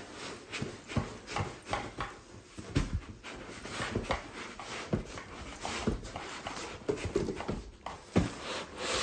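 Cardboard box and styrofoam packing blocks rubbing, scraping and knocking as an electric scooter is pulled up out of its shipping box, in irregular bumps and scuffs.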